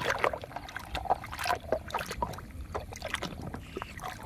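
Shallow muddy water splashing and sloshing in small, irregular splashes as a plastic toy truck is pushed through it by hand.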